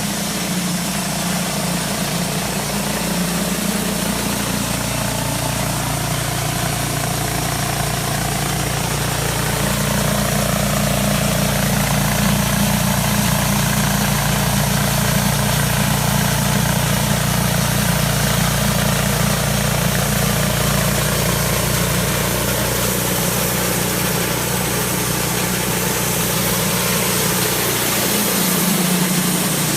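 Engine of a portable sawmill running steadily, its note shifting about 4 seconds in and again about 23 seconds in.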